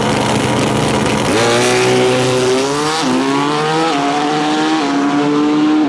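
Two Pro Street drag motorcycles launching off the start line: the engines run held at a steady high rev, then about a second in they take off and the pitch climbs and drops back in steps, three times, as they shift up through the gears.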